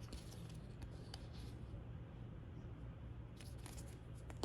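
Faint rustling and a few light clicks of plastic toy molds and packaging being handled, over a steady low hum, with a short cluster of clicks near the end.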